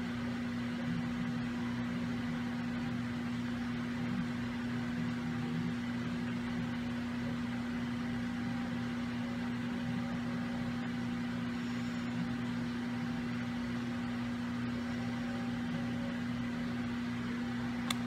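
A steady low hum over faint hiss, unchanging throughout.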